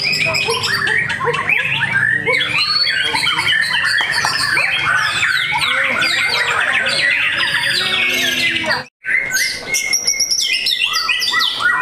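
White-rumped shama (murai batu) singing a fast, varied song of whistles and chattering notes. The song cuts off abruptly just before nine seconds in, then other birdsong follows, with longer held notes and high whistles.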